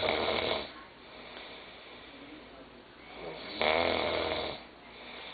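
A teenage boy snoring in his sleep with his mouth open. One snore is fading out as the clip starts, and a second snore, about a second long, comes about three and a half seconds in.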